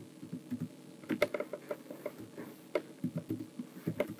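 Typing on a computer keyboard: irregular key clicks, with a few louder strikes.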